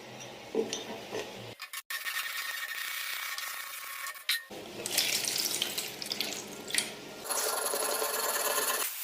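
Scraping and rubbing noises of hands-on restoration work, in short stretches that change abruptly from one to the next.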